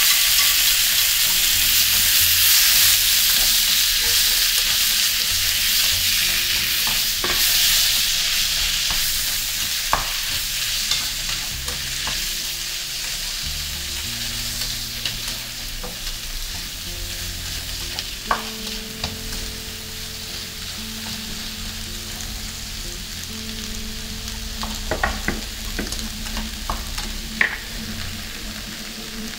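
Sliced onion, tomato, paprika and shiitake sizzling in hot butter and olive oil in a frying pan over high heat, stirred with wooden chopsticks. The sizzle is loudest at first and dies down gradually, and a few sharp taps of the chopsticks against the pan come in the second half.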